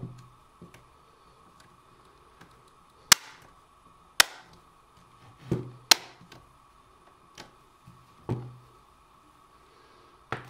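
Plastic screen bezel clips of a Lenovo ThinkPad X260 snapping into place under finger pressure: a series of sharp, irregularly spaced clicks, about five of them loud, with a few softer ones between.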